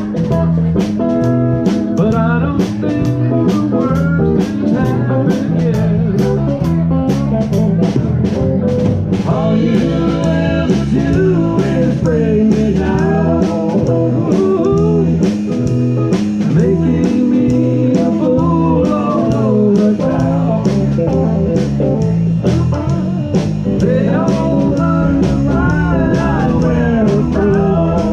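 A live band playing: electric guitar, electric bass and a drum kit, with evenly spaced cymbal strikes for the first third and a melody line that bends up and down in pitch.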